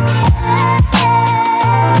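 Background music: an electronic hip-hop instrumental with a heavy bass line and a steady drum beat, with no vocals.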